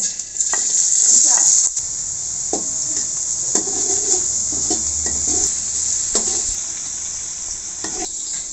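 Chopped onion and garlic sizzling in hot oil in a metal wok, a steady hiss that is loudest in the first two seconds. A metal spatula scrapes and knocks against the wok every second or so as it stirs.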